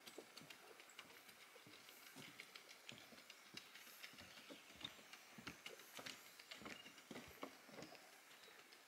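Faint footsteps of people walking on a forest trail: soft, irregular steps and scuffs at a walking pace, about two to three a second.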